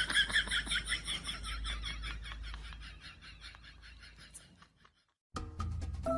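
An animal making a rapid run of high chirps, about six a second, that fades out over some four seconds. After a brief silence, music starts near the end.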